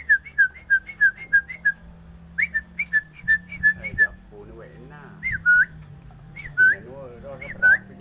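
A run of short, clear whistled notes, about three a second, then after a pause a few single hooked whistles that dip and turn back up. A lower wavering trill comes twice in the second half.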